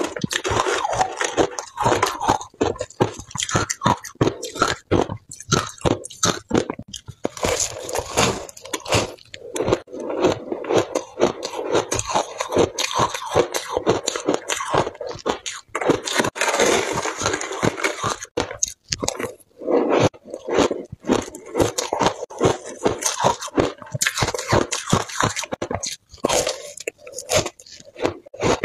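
Shaved ice crunching between the teeth in a dense, irregular run of crackly crunches, with a metal spoon scraping ice in the bowl.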